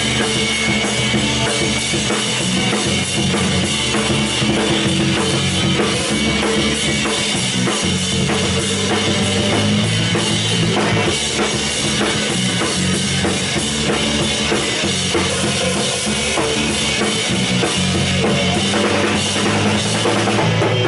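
Live rock band playing an instrumental stretch of a song: drum kit with bass drum and snare hits, under electric bass and guitars, loud and steady, stopping right at the end.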